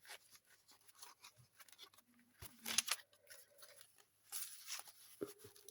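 Paper pages of a handmade junk journal rustling and crinkling as they are handled and turned, with two louder rustles, one about two and a half seconds in and one about four seconds in.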